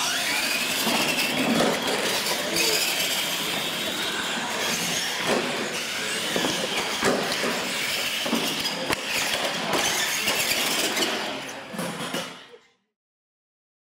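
Radio-controlled monster trucks launching and racing side by side: motors and gearing whine up in pitch at the start, under loud running noise from tyres and drivetrains, with repeated knocks as the trucks hit and land off the jump ramps. The sound fades out near the end.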